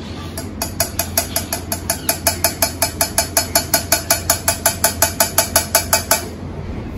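A small steel strainer tapped rapidly and evenly against a steel pan, about five or six metallic taps a second, stopping about six seconds in, to work melted jaggery syrup through the mesh and hold back its grit. A steady low hum runs underneath.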